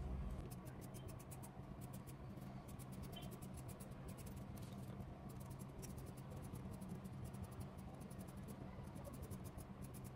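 Fabric scissors cutting through African print fabric on a table: a steady run of faint snips and crisp crunches of the blades closing.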